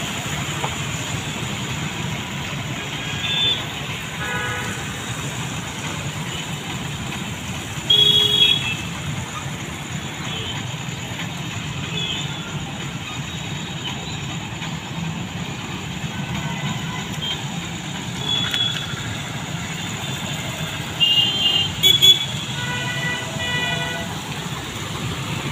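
Motorcycles, scooters and cars running along a flooded street make a steady traffic rumble. Several short vehicle-horn toots cut through it; the loudest comes about eight seconds in, and a cluster follows around twenty-one to twenty-two seconds in.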